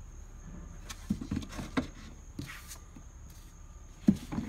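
Paintbrushes being handled and hung on a metal rod inside a plastic toolbox: scattered light knocks and clicks, a short scrape about halfway through, and two sharper knocks near the end.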